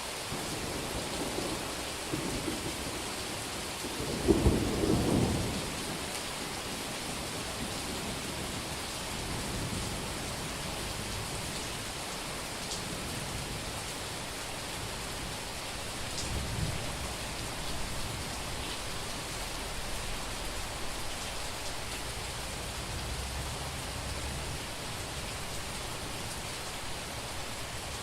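Heavy rain falling steadily with thunder: a loud clap and rumble about four seconds in, then softer low rumbles rolling on through the second half.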